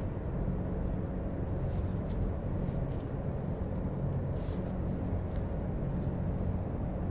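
Steady low rumble, with a few faint, brief rustles and ticks as tomato stems and leaves are handled.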